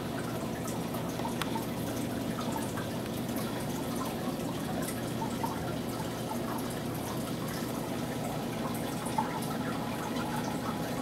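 Aquarium water trickling and dripping, with many small scattered splashes over a steady low hum.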